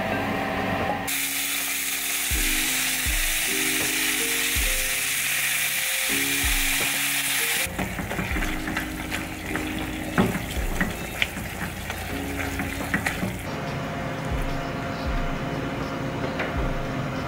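Bulgogi beef frying in a hot nonstick pan: a loud sizzle starts suddenly about a second in. From about the middle, a wooden spatula stirs and scrapes the meat with many small clicks, and the sizzle dies away near the end. Soft lo-fi background music with a steady beat plays throughout.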